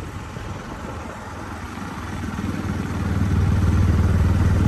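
A motor vehicle's engine running with a low, steady hum that gets louder over the last couple of seconds.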